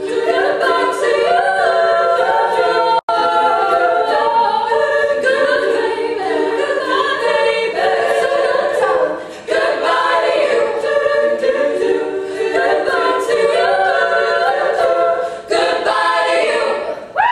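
All-female a cappella group singing in layered harmony, voices only with no instruments. The sound cuts out for an instant about three seconds in, and the singing pauses briefly twice further on.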